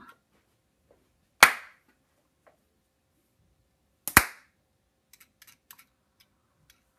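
Two sharp hand claps, about two and a half seconds apart, made to set off a DigiDino clap-activated toy dinosaur. A few faint clicks follow the second clap.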